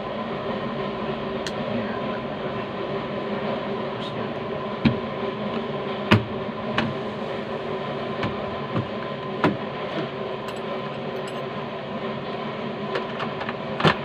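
A few sharp clicks and knocks from handling the Suzuki Carry's door and its newly fitted handle, the loudest near the end, over a steady mechanical hum.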